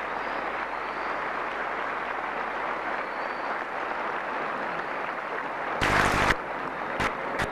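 Crowd applauding steadily. About six seconds in there is a brief loud burst of noise, followed by two short clicks near the end.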